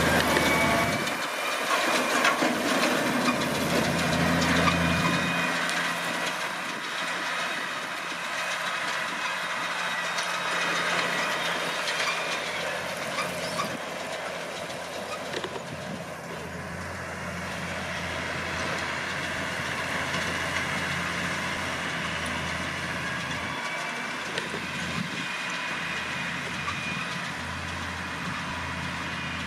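New Holland T6070 tractor engine running as it pulls a Vicon round baler, together with the baler's mechanical working noise. Loudest in the first few seconds as it passes close, then a steadier, more distant running.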